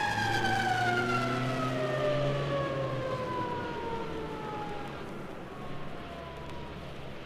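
A siren winding down, its single wailing tone falling slowly and steadily in pitch as it fades away, over a low engine hum.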